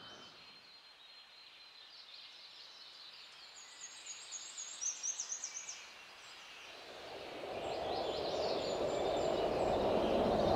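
Woodland birds chirping, with a quick run of about seven loud chirps around the middle. From about two-thirds of the way in, a rushing noise builds and grows louder toward the end.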